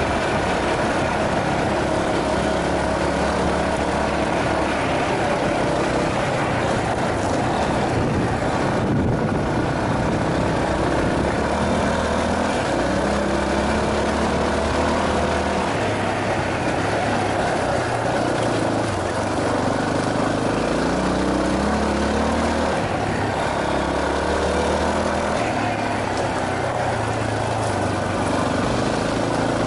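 Yamaha Serow 250's air-cooled single-cylinder four-stroke engine running as the trail bike rides along a dirt forest road, its pitch rising and falling with the throttle, under steady wind rush on the helmet-mounted microphone.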